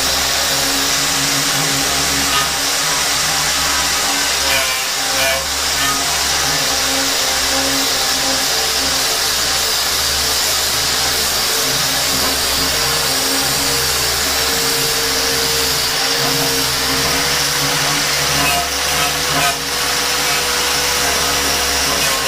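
Electric angle grinder running continuously against a rusted quarter-inch steel plate, stripping the rust down toward bare metal. Its motor pitch wavers slightly with the load, with brief dips in level near 5 and 19 seconds in.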